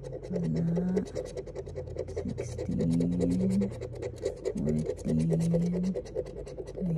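The edge of a plastic card scraping the scratch-off coating from an instant lottery ticket in quick, repeated back-and-forth strokes, several a second.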